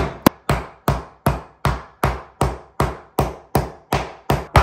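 Flat face of a metal meat tenderizer mallet pounding a starch-coated slice of pork loin through plastic wrap on a wooden cutting board, beating it thin. Sharp, even blows at about four a second.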